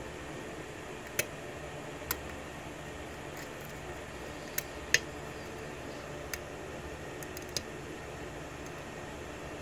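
Single-pin picking of a brass 6-pin key-in-knob lock cylinder: about six small, sharp metallic clicks from the hook pick working the pin stacks, the loudest about five seconds in, over a steady background hiss.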